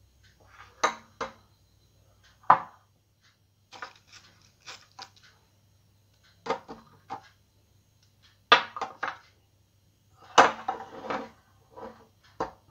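Glass serving bowls being set down and shifted on a table beside a steel plate. About half a dozen sharp clinks and knocks come spread through, each ringing briefly, with softer scraping and handling noises between them.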